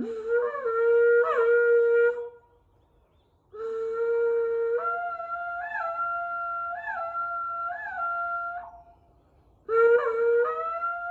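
Horagai, the Japanese conch-shell trumpet, blown in three long blasts. Each holds a low note, then breaks upward to a higher note with repeated quick flips in pitch; the middle blast lasts about five seconds.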